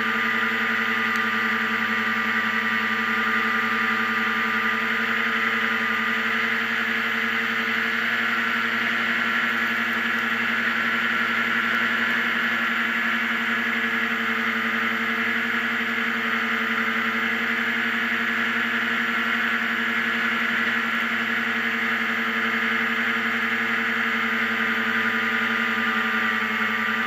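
F50-class racing hovercraft's engine and fan running steadily at racing speed, a constant pitched drone with a hiss of air over it, holding the same pitch throughout.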